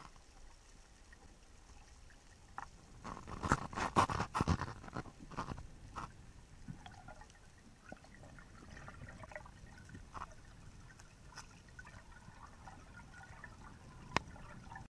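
Underwater sound picked up through a camera housing: water movement and bubbling, louder in bursts about three to five seconds in, then a faint crackling with scattered clicks and one sharp click near the end.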